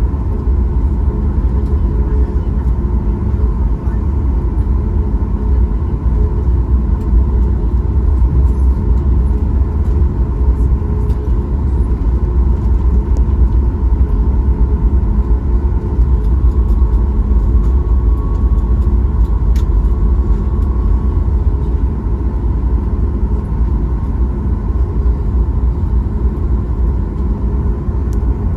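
Steady engine and airflow noise inside the cabin of a Boeing 737 MAX 8, from its CFM LEAP-1B turbofans: a loud, even low rumble with faint steady tones over it.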